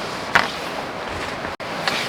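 Steady hiss of heavy rain and wind, with two short sharp taps, about a third of a second in and near the end, and a split-second break in the sound just before the second tap.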